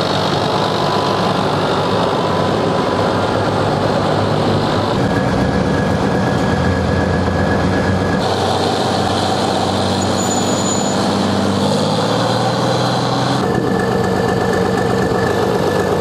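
Farm tractor diesel engines running steadily, heard in several short clips. The engine note changes abruptly about 5, 8 and 13 seconds in.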